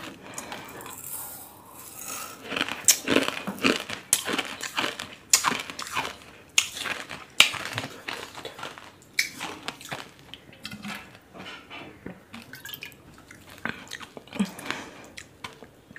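Close-miked chewing of spicy Korean instant noodles: wet mouth smacks and clicks coming irregularly, busiest in the first half and thinning out later.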